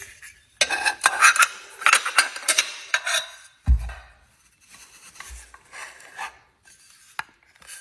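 Hands fitting together the parts of a USB-C docking station stand: busy rubbing and scraping of hard parts for about three seconds, a low thump just before four seconds in, then quieter handling and a sharp click near the end.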